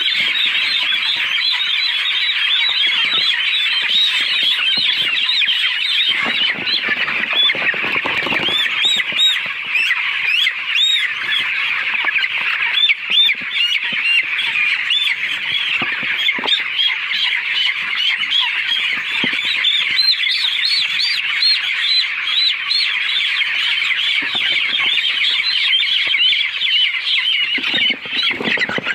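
A large flock of poultry calling all at once: a dense, continuous chorus of many overlapping high-pitched calls.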